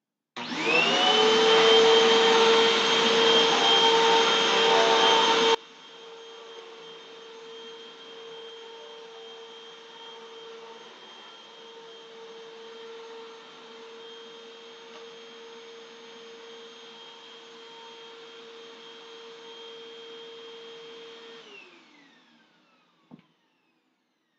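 Hoover WindTunnel bagless vacuum cleaner switched on, its motor whining up to speed and then running steadily with a high whine. About five seconds in the sound suddenly becomes much quieter while the motor keeps running, and near the end it is switched off and winds down with a falling pitch, followed by a click.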